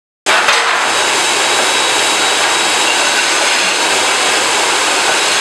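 Loud, steady rushing noise of a running machine, with a faint high whine through it, starting suddenly.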